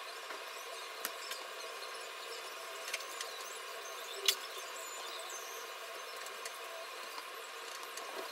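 Steady background hiss with a few light, sharp clicks and taps of hairpins and a comb as hair is pinned on a mannequin head; the sharpest click comes about four seconds in.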